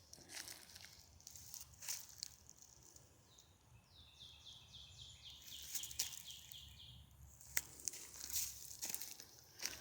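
A small bird singing a trill of about a dozen quick, evenly repeated high notes, lasting about three seconds, starting a few seconds in. Scattered faint crunching and rustling sounds run around it.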